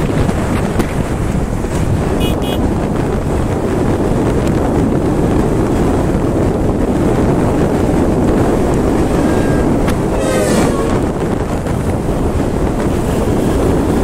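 Wind rushing over the microphone of a motorcycle moving at highway speed, a steady loud roar that buries the engine and tyre noise. A short double beep sounds about two seconds in, and a brief warbling tone about ten seconds in.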